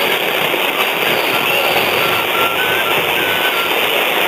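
AM radio static and hiss on a weak, distant medium-wave signal, steady and loud, with the station's audio buried under the noise; a few faint short tones, stepping slightly in pitch, come through near the middle.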